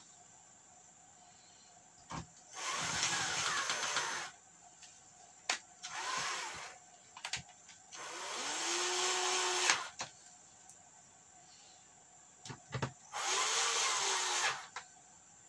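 Cordless drill-driver driving screws into a plasma TV's sheet-metal chassis: four bursts of motor whir, the longest about two seconds, with small clicks and taps between them.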